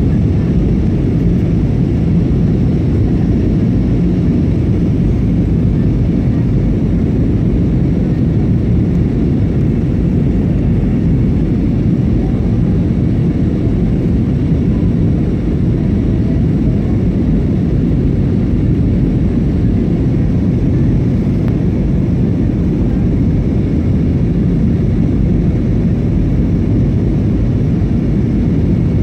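Steady low rumble of an Airbus A320's engines and rushing air as heard inside the passenger cabin, with a faint steady hum, during descent on approach to landing.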